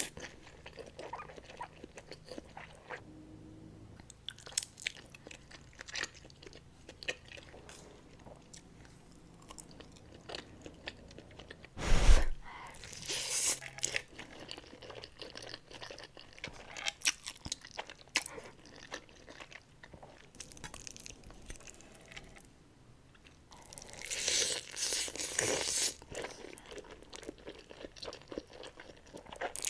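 Close-miked eating of Buldak spicy noodles: chewing and crunching with many small crackly mouth sounds, a sharp heavy knock about twelve seconds in, and a longer dense stretch of eating noise near the end.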